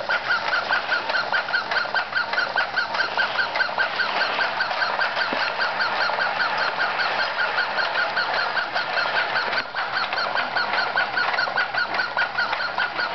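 Wind-up toy waddling along, its mechanism giving a steady rapid squeak, about five squeaks a second, over a whirring rattle.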